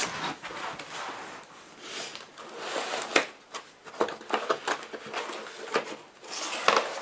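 Cardboard packaging and a foam wrapping sleeve rustling and scraping as a laptop is handled and lifted out of its box, with scattered sharp clicks and a louder burst of rustling near the end.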